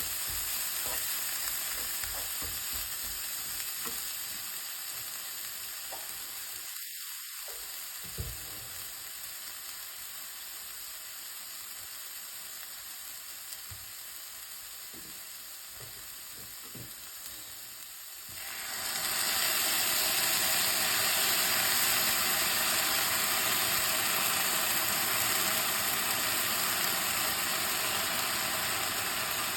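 Anchovies and chili peppers stir-frying in a pan: a steady sizzle with scattered light clicks and scrapes of a utensil. A little over halfway through, a much louder steady hiss sets in suddenly.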